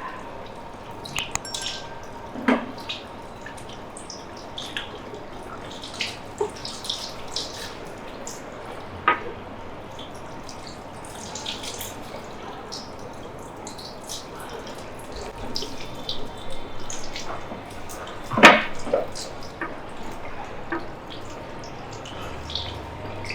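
Water running and dripping, as at a sink or wash basin, with many scattered small clicks and splashes; one sharper knock about eighteen seconds in.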